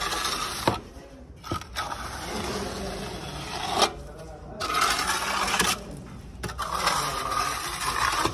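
Trowel scraping over wet concrete on a stair, in several strokes of a second or two each with short breaks between them.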